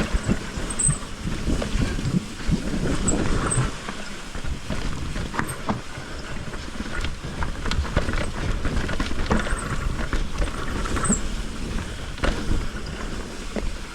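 Mountain bike rolling down a rough, wet trail: the tyres, chain and frame rattle and knock over the ground with a steady low rumble.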